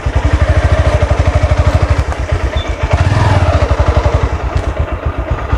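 Motorcycle engine running at low speed while the bike is ridden slowly, its exhaust giving a rapid, even thumping that swells slightly about three seconds in.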